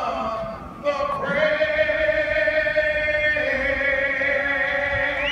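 Singing: a voice holds long, steady notes, starting about a second in and stepping to a slightly lower note about three seconds later.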